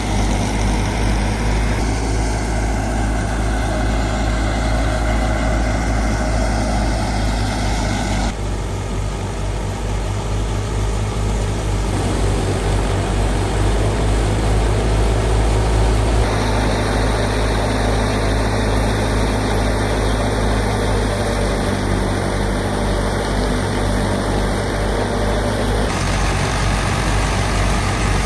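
Fiat 480 tractor's diesel engine running steadily to drive a wheat thresher: a loud, even, low throb with machinery noise over it. The sound shifts abruptly a few times.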